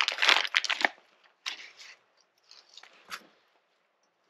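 Plastic parts bag crinkling as small gaskets and a washer are taken out of it, then a few faint separate clicks and taps of small metal parts being handled.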